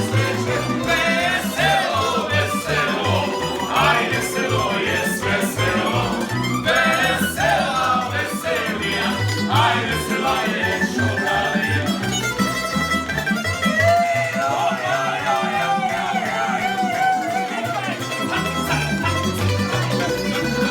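A Croatian tamburitza ensemble playing a folk tune: plucked tamburica melody lines over a steady, rhythmic bass.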